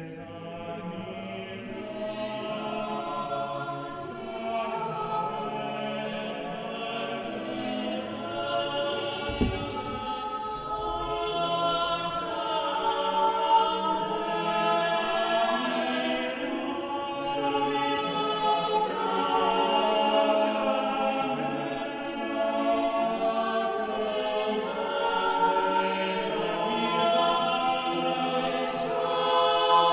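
Background music of a choir singing slow, sustained chords, slowly growing louder.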